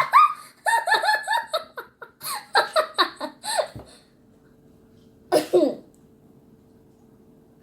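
A child laughing in quick repeated giggles for the first few seconds. After a pause there is one more short laugh about five seconds in.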